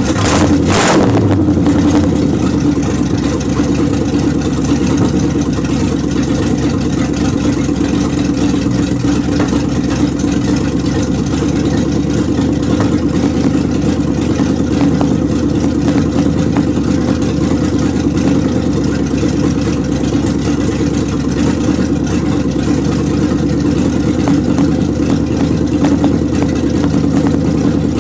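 1929 Chrysler engine idling steadily while it warms up after a cold start, with a short burst of noise about a second in.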